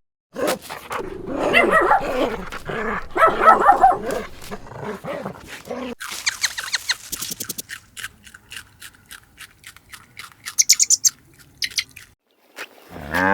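Dog barking and growling through the first half, followed by a run of quick clicks with a few short high squeaks near the end.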